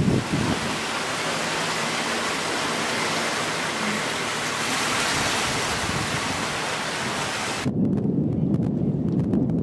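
Steady rushing hiss of water streaming past a moving boat's hull. Near the end it cuts off suddenly into the low rumble of wind buffeting the microphone.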